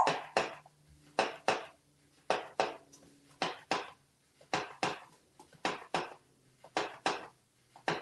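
Fish toy's tail flopping and slapping against a granite countertop in regular pairs, about one pair a second, over a faint steady motor hum.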